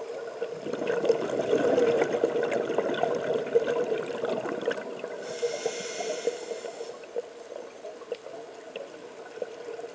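Scuba regulator breathing heard underwater through a camera housing: a rush of crackling exhaled bubbles for about four seconds, then a short hiss of inhalation about five seconds in. A steady hum runs underneath.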